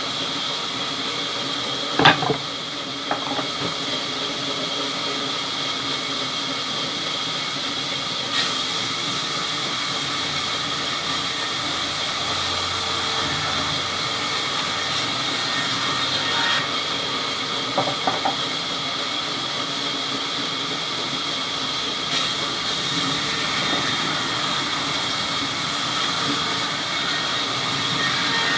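Sawmill machinery running steadily with a hissing hum, with a sharp knock about two seconds in and a few lighter clatters later.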